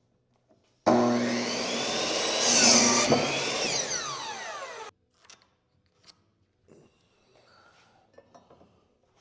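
A power saw starting up and cutting through a wooden framing board: the motor runs loudest about two seconds in as the blade goes through the wood, then the sound falls in pitch and cuts off abruptly. A few light knocks follow.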